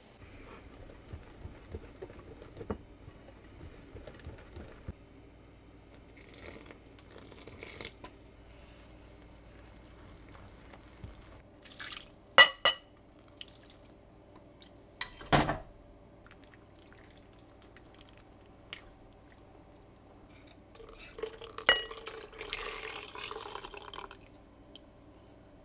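Milk poured in a thin stream into a glass mixing bowl and whisked into batter, a little at a time. There are light ticks early on and a few sharp taps on the glass bowl, the first about twelve seconds in ringing clearly, then a splashy pour near the end.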